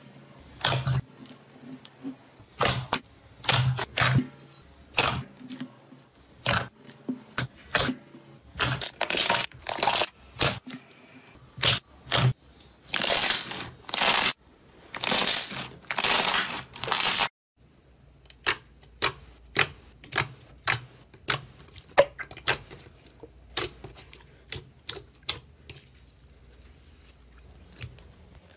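Hands pressing into and kneading soft slime, making irregular wet squelches and pops, some drawn out for about a second. After a short break the sound turns to quicker, sharper clicking pops as a second slime is worked by hand.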